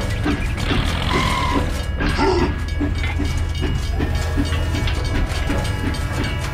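Battery-powered toy train running on its plastic track, its small motor and gears whirring steadily in a rhythmic chug, with background music.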